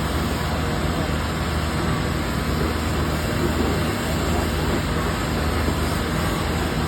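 Backhoe's diesel engine running steadily.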